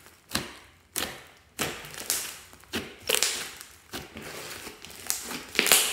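Thick green slime mixed with foam beads being kneaded and stretched by hand, giving sharp sticky pops and clicks about one to two times a second.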